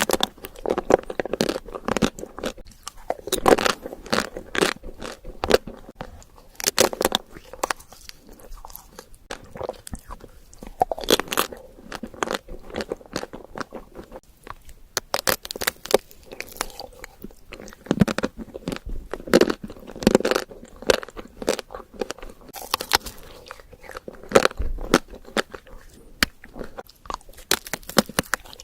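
Close-miked eating: a person biting and chewing food, with many sharp crunchy clicks in quick clusters over softer, moist chewing throughout.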